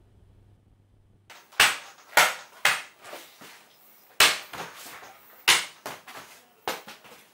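A series of about six hard punch hits from boxing-gloved fists, each sharp with a brief ring-off and irregularly spaced, with a few lighter knocks between them.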